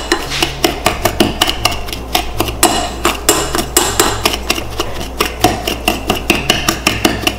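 Metal pastry blender striking the bottom and sides of a glass mixing bowl again and again, several sharp clinks a second, as cold butter is cut into a flour, brown sugar and cinnamon streusel.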